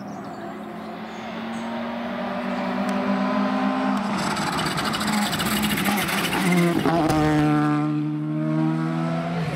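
Rally car engine approaching at full throttle, growing louder and changing gear about four seconds in. Braking for the bend, it blips down through the gears with a rapid crackle from the exhaust, then holds a steadier note as it takes the corner.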